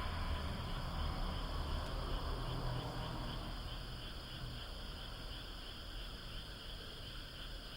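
A chorus of frogs calling continuously, a dense high-pitched chorus, with a low rumble underneath that fades out about halfway through.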